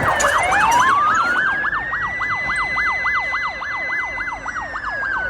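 Two emergency-vehicle sirens sound together. One is a fast yelp that rises and falls about four times a second. The other is a slow wail that climbs, holds high, and starts falling away near the end.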